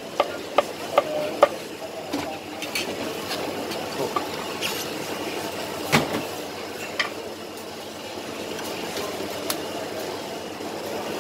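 Cleaver chopping chicken on a thick wooden chopping block, with two or three sharp chops a second that stop about a second and a half in. After that comes the steady busy clatter and chatter of the food centre, with a few clinks of plates and utensils.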